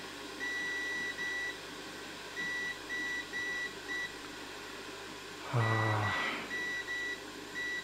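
Multimeter continuity beeper sounding in irregular short beeps of one steady high tone as the probes touch the circuit board: the beep signals that the power rail is still shorted to ground. A brief low vocal murmur partway through.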